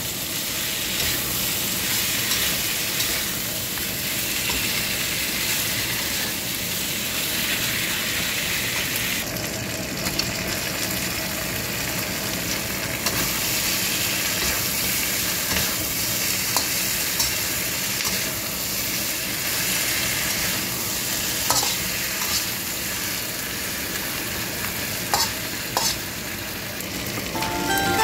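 Chicken pieces sizzling as they are stir-fried in a wok, with the metal spatula now and then clacking and scraping against the pan.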